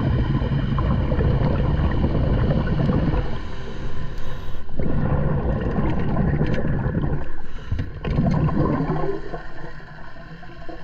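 Scuba diver's exhaled bubbles gurgling out of the regulator underwater, in bursts a few seconds long with short breaks between.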